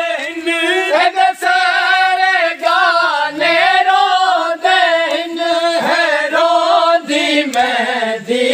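Men singing a Punjabi noha (Muharram lament) together in one long, wavering melodic line, drawing out the refrain between its words. A few sharp knocks cut through now and then.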